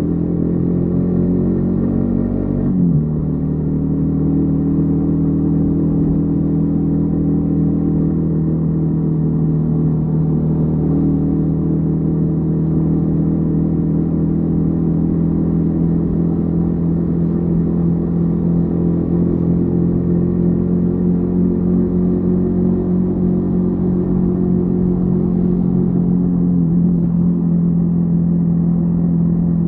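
Yamaha XTZ 150 Crosser S single-cylinder engine running on the move. Its pitch drops about three seconds in, then it holds a steady, even low note.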